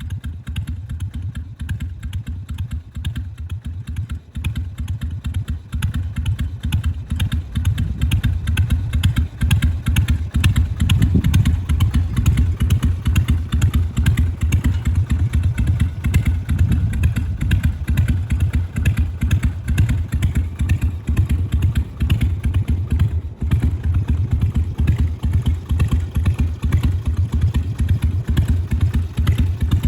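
Harley-Davidson Sportster 883's carbureted air-cooled V-twin idling with the uneven, lumpy 'potato-potato' beat of its firing. The pulses run steadily and grow a little louder about a quarter of the way in.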